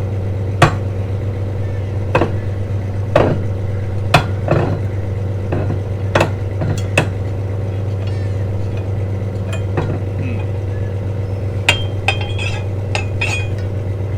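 Metal-on-metal clinks and knocks from a tool working a stiff turnbuckle on a boat's mast stay, about one a second, with a few ringing hits near the end. A steady low machinery hum runs underneath.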